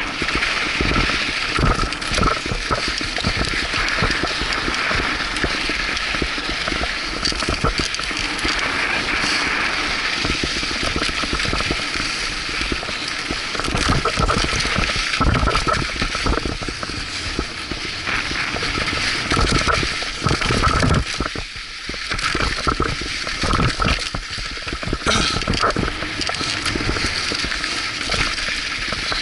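Mountain bike descending a loose dirt trail at speed: wind rushing over the helmet-camera microphone, tyres rolling over dirt and gravel, and the bike rattling over bumps, easing briefly about two-thirds through.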